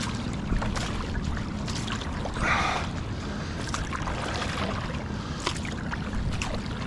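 Sea kayak being paddled on calm sea: water swishes along the hull, with small drips and trickles, and a paddle blade splashes in clearly about two and a half seconds in.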